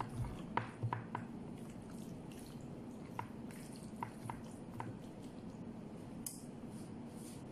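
Hands squishing and kneading chopped meat in a wet marinade, with scattered soft squelches and clicks that thin out in the second half, over a steady background hum.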